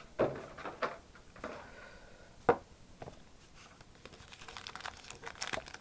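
A cardboard collection box and its packaging being handled: a few knocks and taps, the sharpest about two and a half seconds in, then packaging rustling and crinkling, building up near the end.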